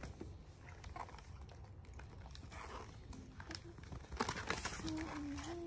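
Faint scattered clicks and light rustling of small plastic toy pieces being handled, picking up about four seconds in, with a soft held tone near the end.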